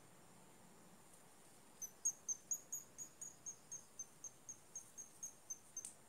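Swiftlets at the nest giving a rapid run of short, high-pitched chirps, about four a second, starting about two seconds in.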